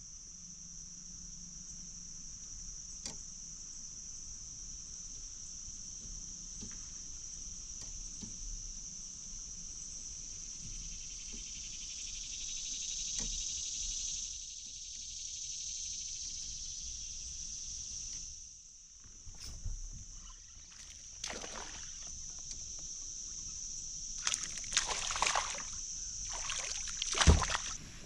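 Insects droning steadily at a high pitch, swelling a little past the middle and dropping out briefly about two-thirds of the way through. In the last few seconds there is a run of sharp knocks and rustles, the loudest just before the end, as a caught smallmouth bass is handled in the kayak.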